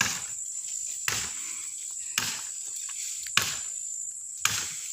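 Wood being chopped from a mango tree, five evenly spaced strikes about a second apart. Insects trill steadily underneath.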